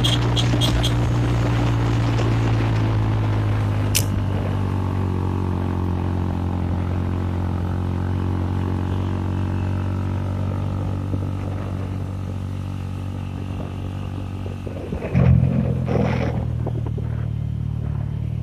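Motorcycle engine running at a steady speed while riding, with a sharp tick about four seconds in and a brief louder rush around fifteen seconds in.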